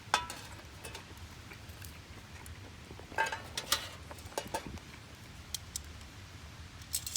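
Scattered sharp crackles and clicks from campfire kindling, with the loudest right at the start and a cluster of them about three seconds in.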